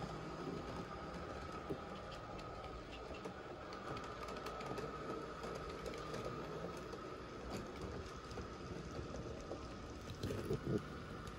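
N gauge model trains running on the layout: a steady motor whine and hum with light clicking of wheels over the track, and a short cluster of louder knocks near the end.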